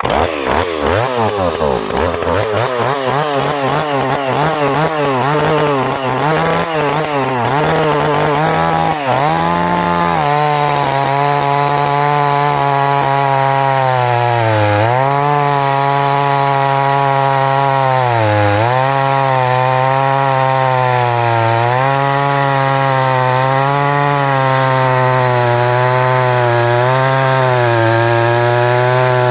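Stihl 026 two-stroke chainsaw running at high revs and cutting through wood. Its engine speed wavers up and down for the first ten seconds, then holds steady with a few brief dips as the chain takes the load. The owner says the old saw still needs more tuning of its air-fuel mixture screws.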